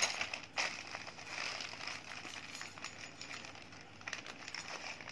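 A parcel's packaging being opened by hand: a couple of sharp snaps near the start, then continuous crinkling and rustling of the wrapping.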